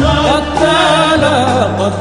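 Background music: a wavering, ornamented melody over a steady sustained bass.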